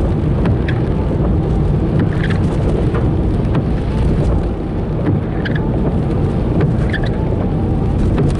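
Steady road and engine rumble heard inside a moving car's cabin in heavy rain, with rain pattering on the car. Faint short squeaks come about every second and a half.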